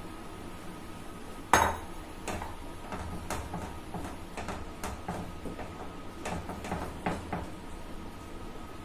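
A spoon knocking and scraping against a nonstick kadhai as semolina is stirred into water and thickens into a stiff dough. The knocks come irregularly, with one sharp clack about a second and a half in.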